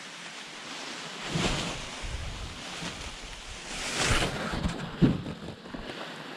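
Wind gusting over the microphone. It swells to a rumbling buffet about a second in and surges again around four seconds, with a short thump about five seconds in.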